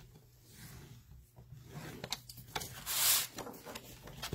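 Cardstock being scored and moved on a paper trimmer: scattered light clicks and taps, and a short scraping swish of paper about three seconds in.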